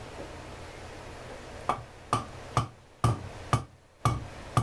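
A low steady hum, then a run of seven sharp knocks starting about a third of the way in, evenly spaced at about two a second, each with a short ring.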